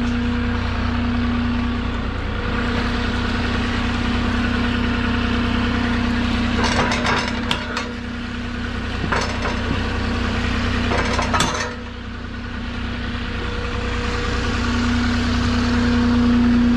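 Moffett M8 NX truck-mounted forklift's diesel engine idling steadily, with two brief bursts of rattling about seven and eleven seconds in.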